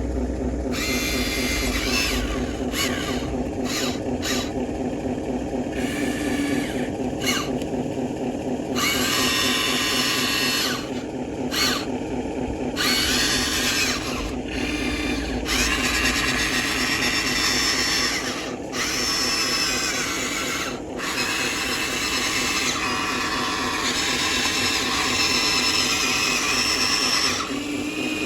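Small electric motors and gearboxes of a Huina RC construction model whining in repeated start-stop bursts as its functions are worked, over a steady lower motor hum.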